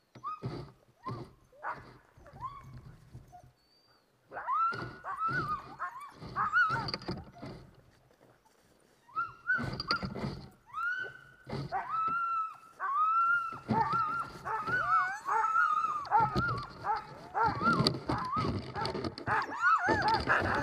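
Sled dogs yelping and whining in short, sharply rising calls. The calls come in separate bursts at first; from about nine seconds in they become a near-continuous, overlapping chorus of several dogs.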